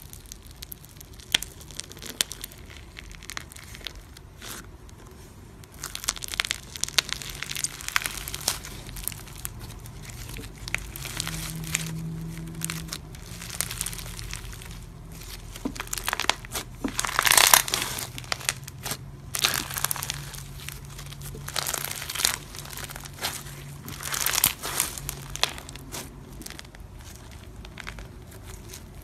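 Foam-bead slime (floam) being pressed, squeezed and stretched by hand, its foam beads crackling and crunching in quick clicks. Sparse clicks at first, then dense crackling from about six seconds in, loudest a little past the middle and again near the end.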